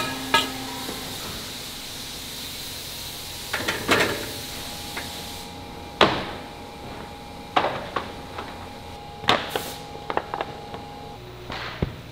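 Wooden furniture panels knocking as they are handled, stacked and set down on a press table: a series of irregular sharp knocks over steady factory machine noise.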